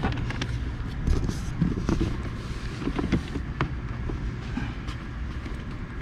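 Scattered light plastic clicks and knocks as a Daihatsu Move Custom's glovebox is handled and fitted back into the dashboard, over a steady low hum.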